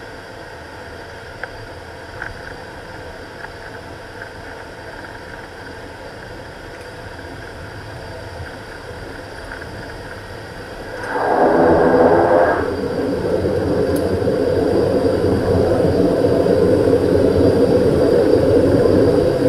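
Beechcraft King Air's twin PT6A turboprop engines and propellers running steadily, heard inside the cockpit while taxiing. About eleven seconds in, the sound suddenly grows much louder and stays loud.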